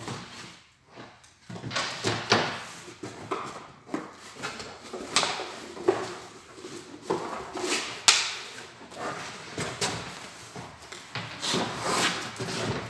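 Cardboard shipping box being opened by hand: packing tape slit and torn, flaps pulled open and the outer carton lifted off. The result is a string of rips, scrapes and knocks of cardboard, the sharpest about two, five and eight seconds in.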